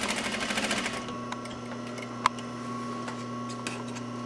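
Juki industrial sewing machine stitching a seam at rapid, even speed, stopping about a second in. A steady hum continues, with a single sharp click about two seconds in.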